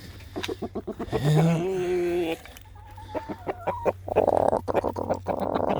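Chickens clucking and calling, with a longer drawn-out call about a second in, a run of short clucks after it, and a raspier, busier stretch near the end.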